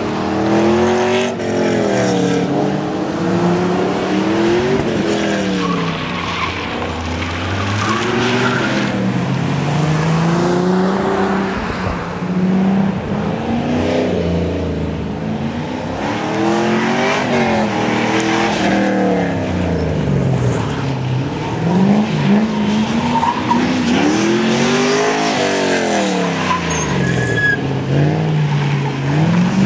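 Datsun Z sports car running hard through an autocross course. Its engine revs climb and drop again every couple of seconds as it accelerates and slows between the cones, with tyres squealing.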